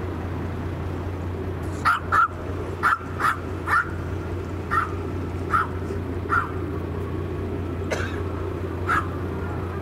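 A small dog yapping: about ten short, sharp barks, irregularly spaced, starting about two seconds in, over a steady low hum.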